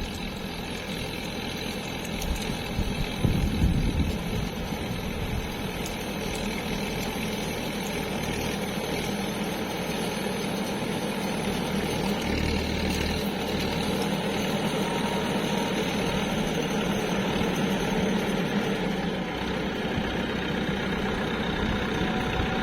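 Farmtrac 65 tractor's diesel engine running steadily under load, with a few louder low bumps about two to four seconds in.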